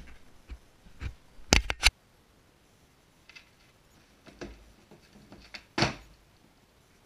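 Knocks and clicks as the camera is handled and set down. Then a skateboard rolls faintly over plywood sheets, with one loud clatter of the board about six seconds in as it passes close.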